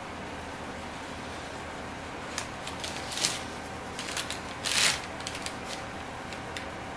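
A metal cookie-sheet tray being handled and tipped upright on crinkled brown paper: after a couple of seconds of low steady hiss, a scattering of light clicks and paper rustles, the loudest rustle about five seconds in.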